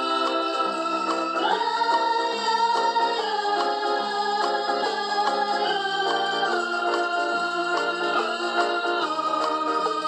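Background music of slow, held chords that change about once a second.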